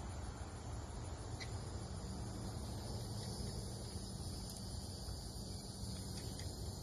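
Faint outdoor ambience: a steady low rumble with a thin, steady high drone of insects above it, and one faint click about a second and a half in.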